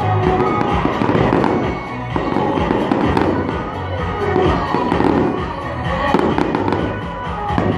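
Fireworks going off in rapid, continuous succession, a dense run of cracks and bangs, with music playing alongside.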